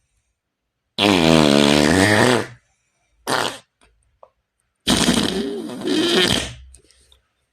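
Imitation fart sound effects, three in a row: a long, pitched one that dips and rises in pitch, a short blurt, then a longer, raspier one with a wavering pitch.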